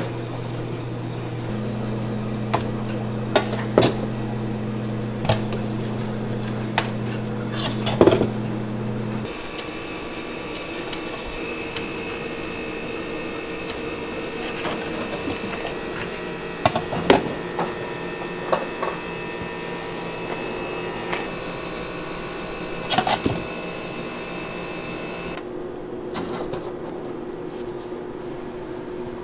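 Long serrated knife slicing chocolate sponge cake layers, with scattered clicks and knocks as the blade and cake meet the steel tray and guide bars. Underneath is a steady machine hum whose pitch shifts about a third of the way through.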